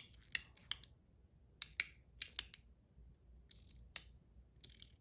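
Metal Toys DZ Top B fidget with its ZZ plate being clicked by hand: sharp metal clicks, often in close pairs, at irregular intervals.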